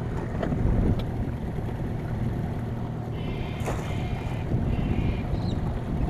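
Small boat's outboard motor running steadily, with a splash partway through as a crayfish hoop net is thrown out on its rope and hits the water.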